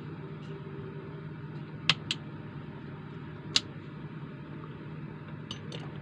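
A few sharp clicks and taps from handling the parts of an opened smartphone during disassembly: a close pair about two seconds in, another a second and a half later, and two softer ones near the end, over a steady low hum.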